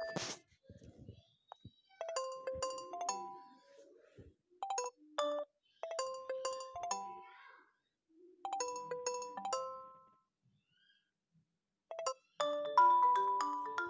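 Nokia 3.1 Plus ringtone: a short phrase of bright, bell-like notes played four times with pauses between. Near the end a different ringtone begins with a denser run of notes.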